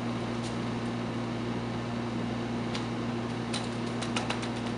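Steady low room hum, with a few faint clicks early and a quick run of small plastic clicks and creaks near the end as a syringe plunger is pressed to force liquid through a syringe filter.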